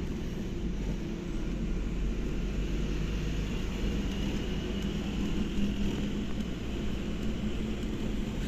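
Bus engine running and road noise heard from inside the cabin while driving: a steady low rumble with no breaks.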